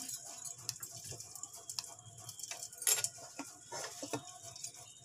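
Faint, irregular ticking and crackling from a lidded steel pot in which ghee poured over a live charcoal is smoking the chicken, with a few sharper clicks, one near the middle and a couple about four seconds in.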